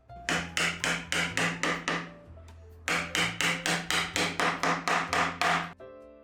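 Rapid hammer blows in Japanese hand-tool joinery, about four a second, in two runs with a short pause between, over soft background music.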